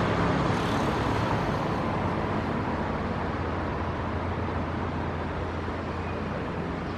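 Steady city road traffic noise: a continuous hum of engines and tyres with no single vehicle standing out.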